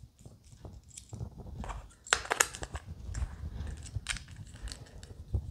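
Small parts being handled on a workbench: a run of light clicks and taps, with a louder cluster about two seconds in.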